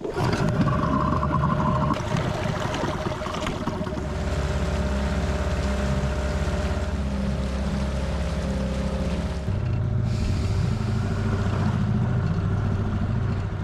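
Small outboard motor on an inflatable dinghy running steadily under way, with water rushing past the hull; the engine note shifts slightly a couple of times.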